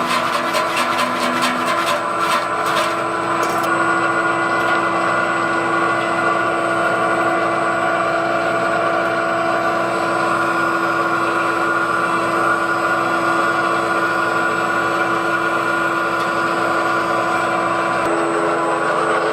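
An industrial vegetable dicing machine running steadily under its electric motor, with a fast rhythmic clatter in the first few seconds.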